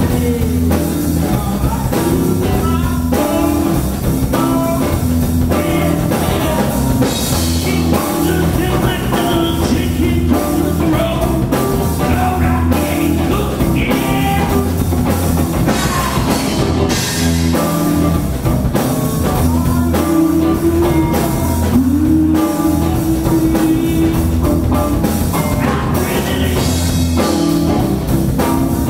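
Three-piece rock band playing live: electric guitar, electric bass and drum kit, loud and continuous.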